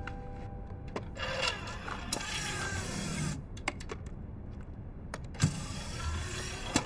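Quiet handling sounds: soft rustling swishes and a few small clicks as a person moves about and fiddles with the edge of a television.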